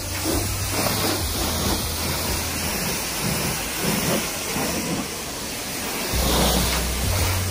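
High-pressure water jet from a pressure-washer wand spraying onto a car's body panels and wheel, a steady hiss.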